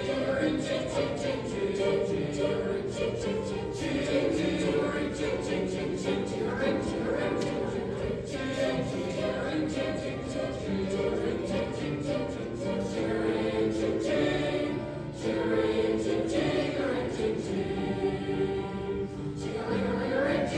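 Middle-school choir singing in parts, young voices, with short sharp accents recurring in a steady beat under the singing.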